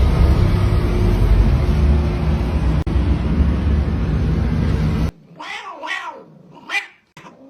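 A loud, steady rumbling noise that cuts off suddenly about five seconds in. It is followed by three or four short animal cries that rise and fall in pitch.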